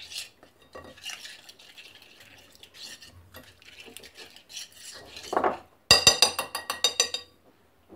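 Soft, faint stirring of a wet herb-and-spice marinade in a glass bowl, then, about six seconds in, a metal spoon clinking rapidly against the glass bowl, about ten quick ringing clinks over a second and a half.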